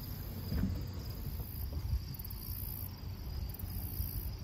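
Insects chirping in a steady outdoor chorus, with a very high trill that comes and goes in stretches of about a second, over a low rumble.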